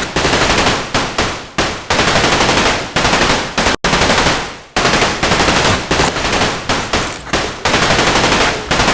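Phone ringtone of recorded machine-gun fire: long runs of rapid automatic shots. It breaks off for an instant just before four seconds in, then resumes and stops abruptly at the end.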